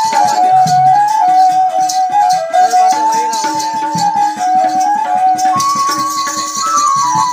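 Odia Danda folk dance music: a high wind-instrument melody moving in steps, over hand-drum strokes and jingling, rattling percussion. The jingling grows denser about five and a half seconds in.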